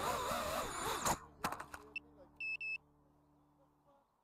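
Background music cuts off abruptly about a second in. A few sharp clicks follow, then a short electronic beep and a longer one, both at the same high pitch, over a faint steady hum.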